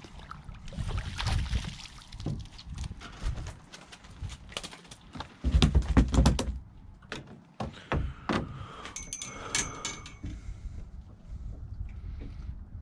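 A European perch being landed with a landing net: splashing at the surface, then knocks and clatter as the net is swung aboard, with the loudest thump about halfway through. Scattered taps and rattles follow as the fish is handled in the net.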